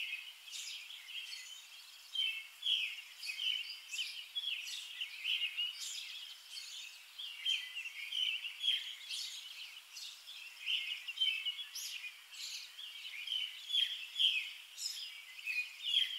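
Birds chirping: a dense, irregular stream of short, high calls.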